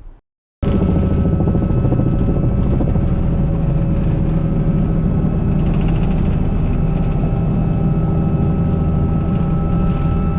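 Helicopter running steadily and loudly, its engine hum overlaid by a fast, even beat of the rotor blades. It starts abruptly after a brief silent gap about half a second in.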